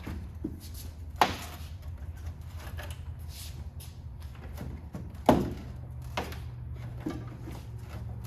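Two sharp knocks, about a second in and again about five seconds in, with smaller clicks and clunks between, as the engine and transmission are worked loose. A steady low hum runs underneath.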